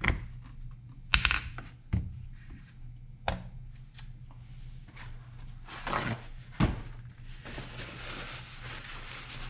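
Scattered knocks and clicks of metal engine parts being handled as the cylinder is worked off a Poulan Pro chainsaw's two-stroke engine to expose the piston, with a rustling scrape near the end.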